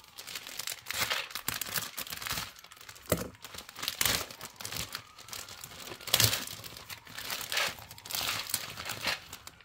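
Clear plastic foil wrapping crinkling and rustling in irregular bursts as hands pull it open and slide a magazine out.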